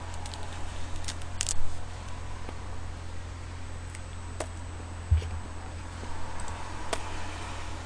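Faint, close-miked chewing of a bite of seaweed-wrapped triangle kimbap, with a few soft mouth clicks and smacks scattered through, over a steady low hum.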